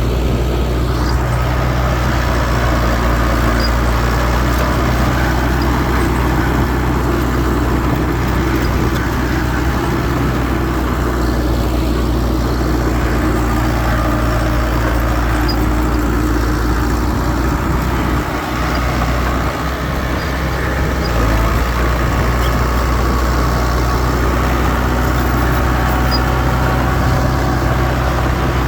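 Heavy diesel earthmoving machinery running, a steady low engine drone that dips briefly about two-thirds of the way through.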